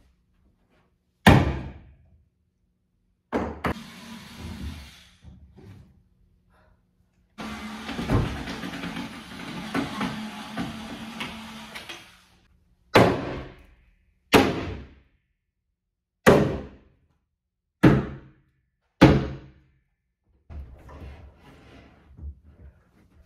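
Sharp knocks and bangs on wood as a built-in wooden bookshelf frame is demolished: two knocks, a few seconds of scraping and rattling, then five loud bangs about every one and a half seconds, with fainter clattering near the end.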